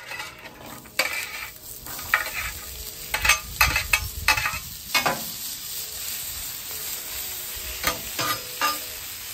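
Cut vegetables pushed off a metal sheet pan with a scraper onto a hot, oiled flat-top griddle (heated to the mid 400s °F). Sharp clatters and scrapes of metal come over the first few seconds, then the vegetables settle into a steady sizzle as they start to fry.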